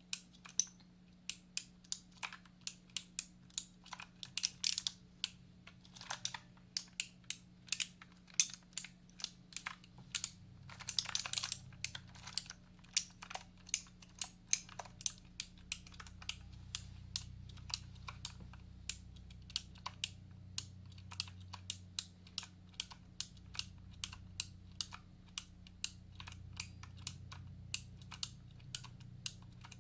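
Computer keyboard typing: separate keystroke clicks at an unhurried pace of a few a second, with a quicker flurry about eleven seconds in. A steady low hum runs underneath.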